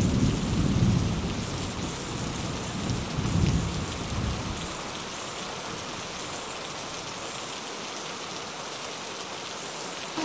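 Heavy rain falling steadily, with low rumbles of thunder right at the start and again about three seconds in.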